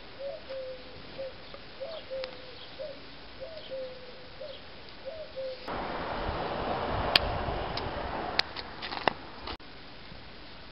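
Faint pigeon cooing: short calls at one pitch, each opening with a small upward flick, about one a second. About halfway through, a louder steady hiss with a few sharp clicks takes over for about four seconds. It stops abruptly.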